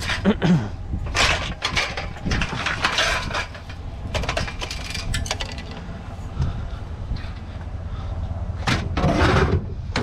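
Irregular knocks, clatter and scrapes of scrap items being handled and loaded onto a trailer, over a steady low rumble.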